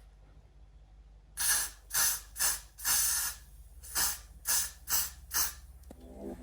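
A spray bottle spritzed about eight times in quick succession, short hissing squirts roughly half a second apart, starting just over a second in.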